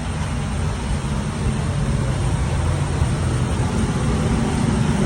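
Steady low rumble and hiss of a jet airliner around the boarding, the kind of noise its engines or air system make at the gate.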